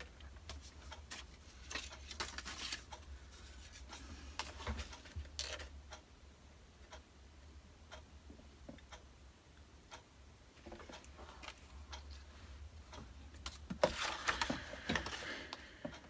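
Paper being handled and slid into place on a paper trimmer, with scattered light ticks and clicks of paper and trimmer. A longer papery rustle and scrape comes near the end. A faint steady low hum runs underneath.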